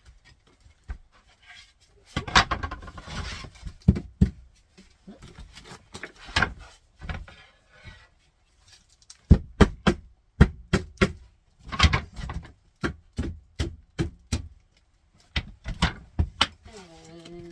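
Mallet tapping engineered hardwood flooring planks into their click joints: a series of sharp knocks in quick clusters, with a stretch of scraping and clatter about two seconds in as planks are handled.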